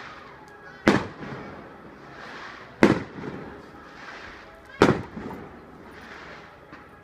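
Aerial firework shells bursting: three sharp bangs about two seconds apart, each trailing off in echo.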